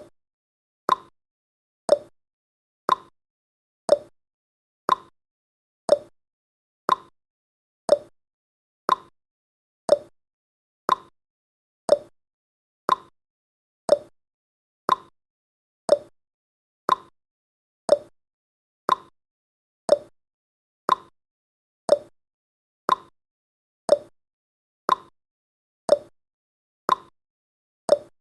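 Countdown timer's tick sound effect: a short, sharp click once every second, with silence between the ticks.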